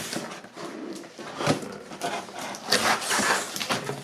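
Cardboard packaging and parts being handled and pulled from a box: irregular rustling, scraping and light knocks, busiest about a second and a half in and again near three seconds.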